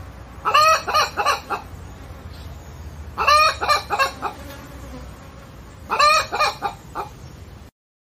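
Chicken clucking in three bursts of several short calls, about three seconds apart, over a steady low hum. The sound cuts off abruptly near the end.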